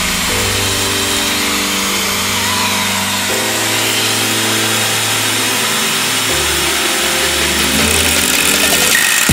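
Background music of sustained chords, changing every few seconds, over a steady hiss.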